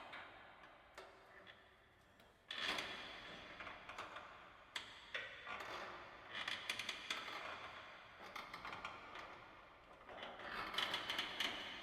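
Ghost ship ambience sound effect: waves of clicking, ticking and creaking, with a sudden swell about two and a half seconds in, another around six to eight seconds, and the loudest near the end.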